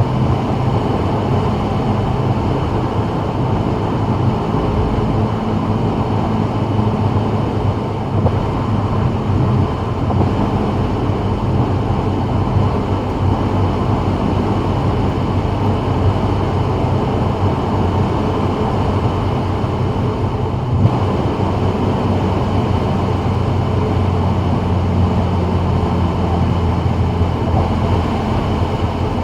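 Steady road noise of a 2024 Subaru WRX cruising at freeway speed on wet pavement: tyre hiss and wind with a low, even engine drone underneath.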